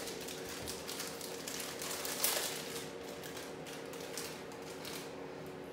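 Crinkling and crackling of a plastic snack packet being handled and opened, with one sharper crackle about two seconds in and the rustling easing off near the end.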